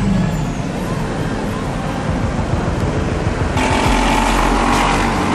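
Vehicle engines passing on a street, with rapid low engine pulsing through the first few seconds. About three and a half seconds in, a louder, hissier engine sound joins.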